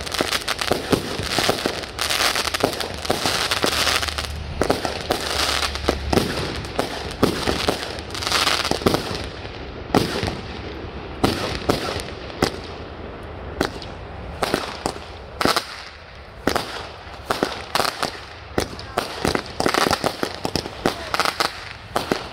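Consumer 200-gram fireworks cakes and shells going off in quick succession: many sharp bangs and pops, with stretches of hissing crackle between them.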